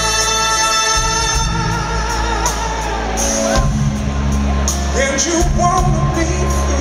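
Live soul band playing: the horn section of saxophones, trumpet and trombone holds a long chord, then about three seconds in the horns drop out and a male singer's voice carries on over bass and drums.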